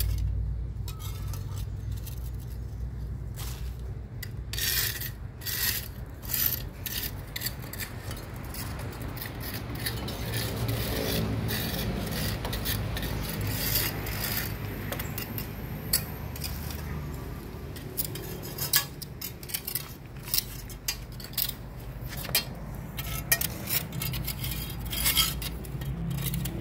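Long metal litter tongs scraping and clicking against the concrete sides and floor of a drainage ditch as leaves and litter are picked out, with many irregular sharp clinks.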